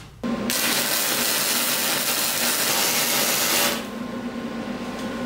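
Wire-feed welder arc sizzling as a weld is run on square steel tubing, starting a moment in and stopping sharply after about three and a half seconds. A steady hum continues after the arc stops.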